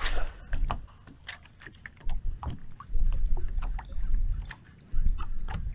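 Water lapping against a small boat's hull, with wind rumbling in gusts on the microphone and scattered light clicks and taps of handling on board.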